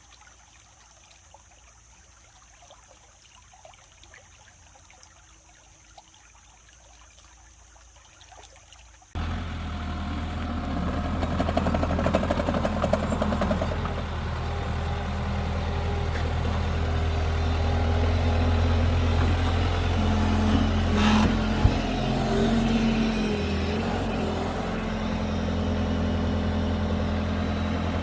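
Faint quiet background for about nine seconds, then a skid steer's engine comes in suddenly and runs steadily with a deep hum, its pitch shifting a little later on. A single sharp knock sounds about two-thirds of the way through.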